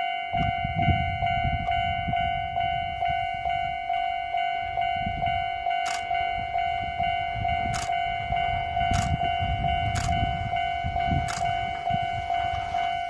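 Railway level-crossing alarm ringing steadily over the low rumble of a passing train, with a few sharp clicks in the second half.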